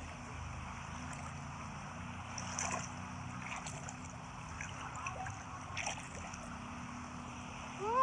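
Shallow sea water lapping and splashing softly around someone wading, with a few small splashes, over a low steady hum.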